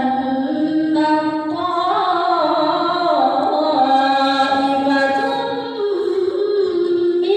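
A woman's voice reciting the Qur'an in melodic tilawah style. She holds long, drawn-out notes that step up and down in pitch, with a brief breath about six seconds in.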